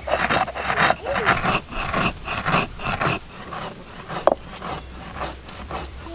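Stone roller rubbed back and forth over granulated sugar on a flat grinding stone (shil-nora), a rhythmic gritty scraping about twice a second, with one sharp click a little after four seconds. The sugar is being crushed to a fine powder.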